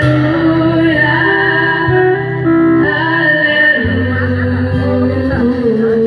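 A trio of girls singing a song into microphones, backed by a live band of acoustic and electric guitars, with held notes moving in a melody over a steady bass line.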